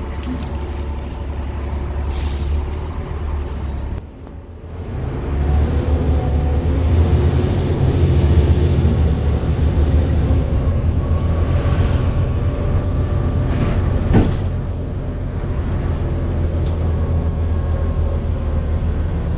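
Volvo B7TL double-decker bus (fleet number VLA129) running. The engine drops away briefly about four seconds in, then pulls louder with a thin high whine over it for a few seconds. A single sharp knock comes about fourteen seconds in.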